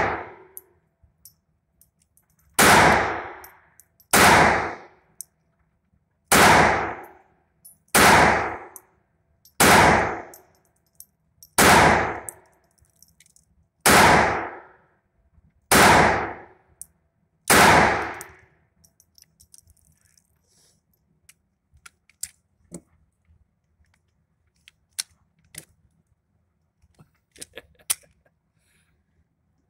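Ruger SR22 .22 LR semi-automatic pistol fired nine times, slow and evenly, one shot about every two seconds, each report ringing in the indoor range. After the last shot there are only a few faint clicks and knocks of the gun being handled.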